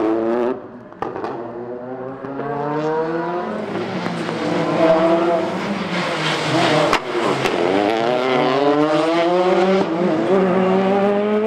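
Citroën DS3 rally car's engine revving hard, its pitch climbing again and again through gear changes, dropping around the middle and then climbing once more, with a single sharp crack about seven seconds in. A hiss of spray off the wet tarmac runs underneath.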